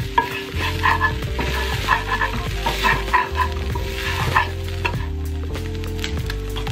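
A metal spatula scraping and stirring diced chicken, garlic and onion around a cast iron skillet in repeated short strokes, with the food sizzling.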